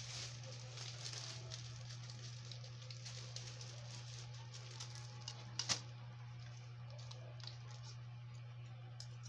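Quiet eating of Coco Crunch cereal: a spoon ticking and scraping in a bowl, with two sharp clicks about five and a half seconds in, over a steady low hum.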